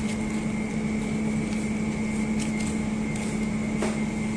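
Steady machine hum with a constant low tone and a fainter high tone, with a few faint light ticks over it.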